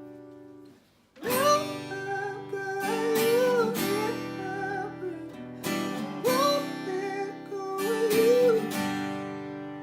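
Acoustic guitar and voice performing a pop-soul song, with wordless sung melody over strummed chords. The music stops briefly about a second in, then comes back in strongly.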